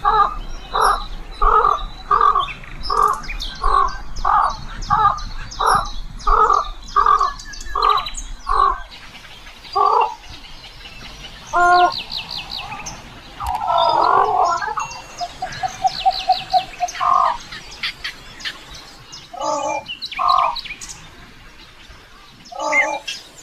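A large bird's loud pitched calls, repeated steadily about three times every two seconds for the first eight seconds, then more scattered, with a quick run of short pulses in the second half. Smaller birds chirp high in the background.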